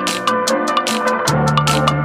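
Background music with a steady drum beat and electronic instruments.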